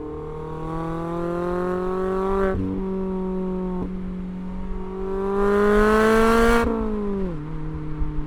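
Mazda MX-5 ND2's 2.0-litre four-cylinder engine through a Goodwin Racing RoadsterSport RACE exhaust, pulling hard: the pitch climbs for two and a half seconds, breaks off at a gear change, then climbs again to its loudest about five to six and a half seconds in before the revs drop as the throttle is lifted.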